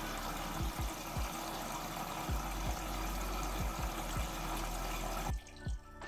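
An Electrolux EW6S426BUI front-loading washing machine running a wash: a steady rush of water in the drum, with irregular low thumps about twice a second from the tumbling load. The water noise cuts off abruptly near the end.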